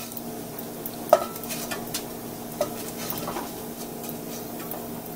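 Bacon grease sizzling quietly in a stainless steel pan while a wooden spoon stirs and scrapes through it. The spoon gives a few light knocks against the pan, the clearest about a second in.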